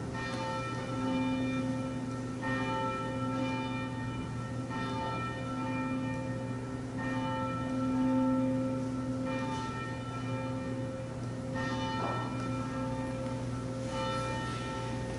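A church bell tolling slowly, struck about every two and a half seconds, each stroke ringing on into the next.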